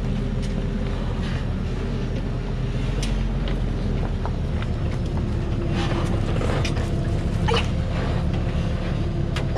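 Diesel engine of a Thaco Forland truck laden with about 18 tonnes of acacia logs, running steadily at low speed as it crawls over a rocky forest track, with a few sharp knocks along the way.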